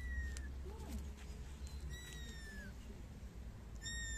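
A kitten mewing three times, about two seconds apart: thin, high-pitched calls that drop in pitch at the end.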